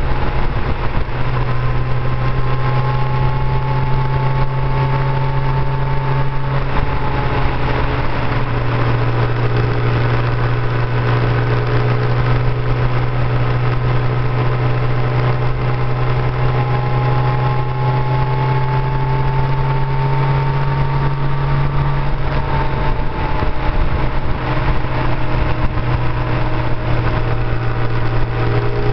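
Motorcycle engine running steadily at cruising speed, heard from the rider's seat with wind and road rush. The engine note drifts slowly up and down, with small changes about a third of the way in and again about three quarters through.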